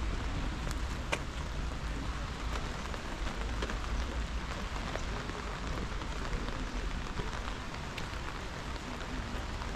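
Steady rain falling, an even patter with a few sharper drop hits standing out, over a low rumble underneath.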